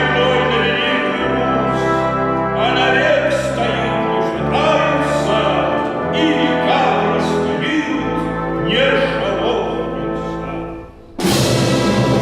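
Russian folk orchestra and voices performing a slow oratorio passage over held bass notes that change every couple of seconds. Near the end it drops away briefly, then the full ensemble comes in suddenly and loudly.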